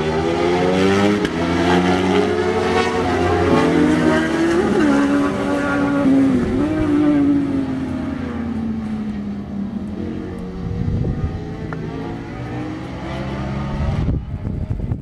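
Several sport motorcycles running at high revs past the track, their engine notes overlapping, rising and falling in pitch. The sound fades somewhat after about the halfway point as the bikes move off.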